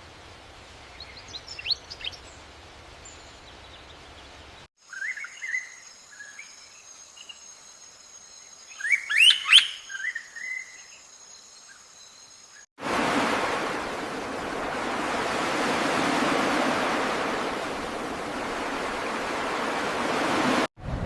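Birds chirping in short calls over outdoor ambience, with a louder burst of calls about nine seconds in and a faint steady high whine under them. About thirteen seconds in the sound cuts abruptly to a loud, steady rushing noise.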